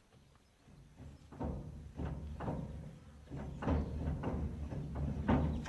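Roller chain and metal parts being handled on a Case IH 3650 baler, giving a series of irregular clanks and knocks, about six of them, starting about a second in.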